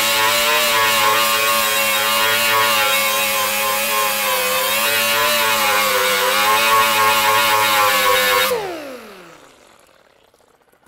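Air-powered die grinder with an abrasive disc stripping paint and rust off old sheet steel: a steady high whine whose pitch wavers slightly as the disc bears on the metal. It then winds down in falling pitch about eight and a half seconds in.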